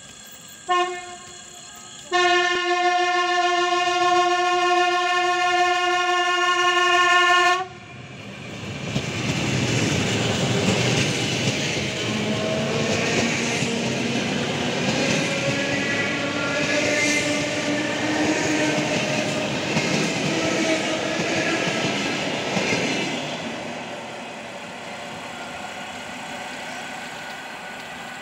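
ET2M electric multiple unit train departing: a short horn toot, then one long steady horn blast of about five seconds. It then pulls away past at close range, with wheel noise on the rails and a gently rising whine from the traction motors as it gathers speed, fading after about twenty seconds.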